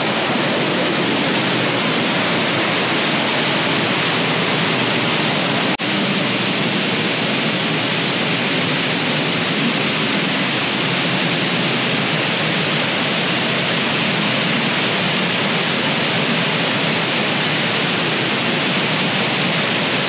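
Large waterfall close by: a steady, loud rush of falling water that dips out for an instant about six seconds in.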